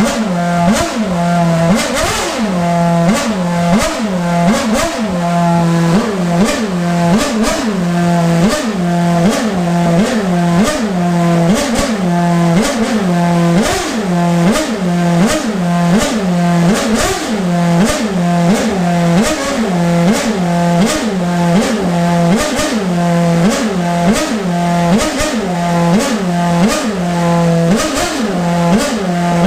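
Formula 1 car engine being warm-up tested, held at a steady idle and blipped up and back down over and over at an even rhythm of about once a second.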